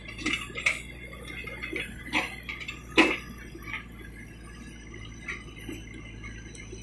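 Case 770 EX backhoe loader working its backhoe: a steady low engine hum with scattered sharp clicks and knocks from the bucket and arm, the loudest a single knock about three seconds in as the bucket comes down into the soil pile.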